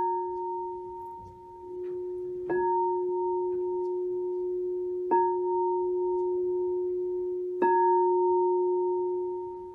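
Singing bowl struck four times, about every two and a half seconds, each strike ringing on in a steady tone with a higher overtone above it.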